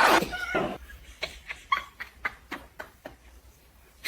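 Parrot making a short squawk, then a run of quick beak clicks and brief chirps that fade away.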